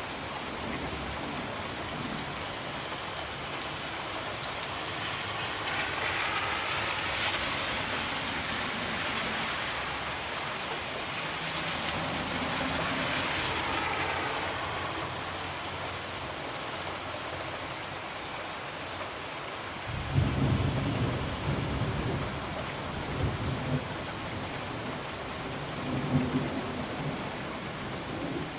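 Steady rain falling, its hiss swelling twice in the first half. About two-thirds of the way through, thunder rumbles in, rolling with several louder peaks.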